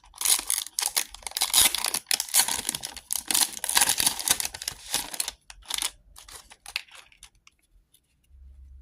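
Foil wrapper of a Magic: The Gathering collector booster pack being torn open and crinkled for about five seconds, then a few lighter rustles and clicks.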